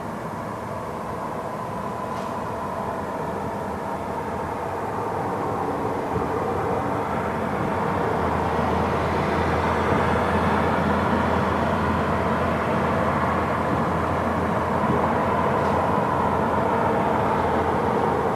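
Steady vehicle rumble that grows louder over the first half and then holds steady, with two faint pops.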